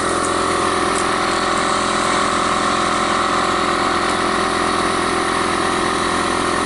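Air compressor running steadily while a trailer tire is aired up.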